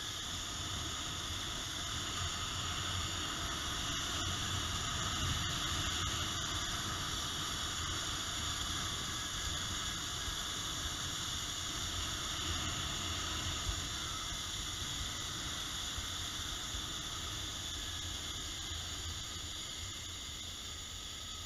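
Steady rushing hiss of a zipline ride: wind buffeting the action camera's microphone and the trolley running along the cable, with a low rumble underneath. It eases slightly near the end as the ride slows toward the landing.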